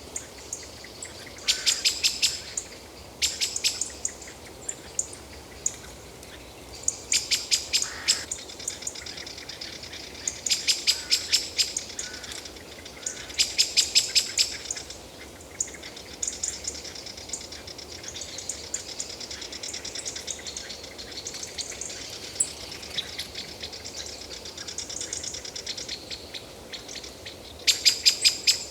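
A bird calling in bursts of rapid, sharp, high notes, each burst about a second long and repeated every few seconds. Fainter high calls fill the gaps over a steady forest hiss.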